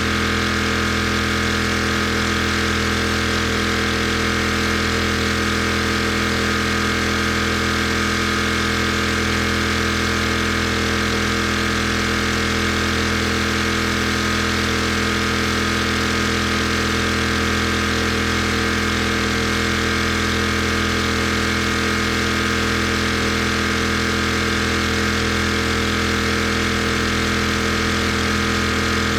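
Pressure washer engine running at a constant speed, a steady, unchanging drone throughout.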